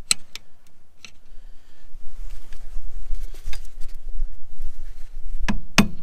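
Tapping and knocking on a stuck emergency brake cable end to drive it out of its metal bracket: a few light clicks in the first second, then a run of sharp knocks, about three a second, near the end.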